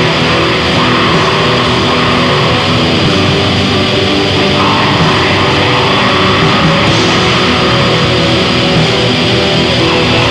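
Raw black metal: heavily distorted electric guitar over bass and drums, a loud, unbroken wall of sound.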